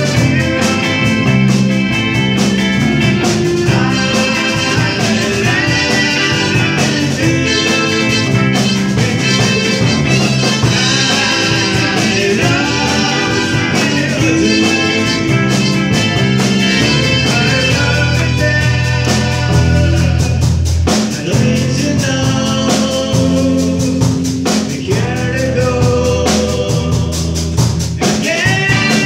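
Live rock band playing a song: electric guitars, bass and drum kit with a steady beat, and a voice singing over them.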